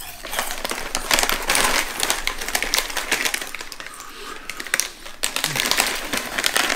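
Plastic snack bag crinkling as it is handled and turned over in the hands: a dense run of crackles and rustles.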